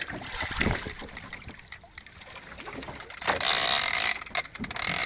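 Fishing reel ratchet clicking while a hooked tuna is being fought, with a loud rush of hissing noise about three and a half seconds in.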